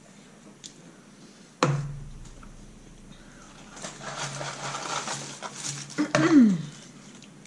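A single sharp thump, then a couple of seconds of rustling and handling noise, ending in a short whine that falls quickly in pitch.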